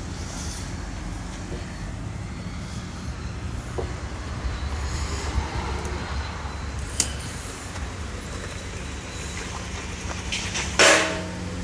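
Steady low engine rumble of road traffic going by, with a short loud hiss near the end.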